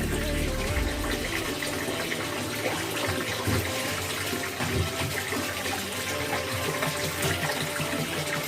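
Tap water running and splashing as plastic electric-fan parts are washed under it.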